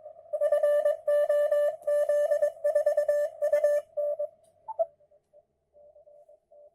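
Morse code (CW) signal received on an amateur radio transceiver and heard through its loudspeaker: a steady mid-pitched beep keyed on and off in dots and dashes. It is loud for about four seconds, then after a brief chirp it goes on much fainter, keyed in the same rhythm.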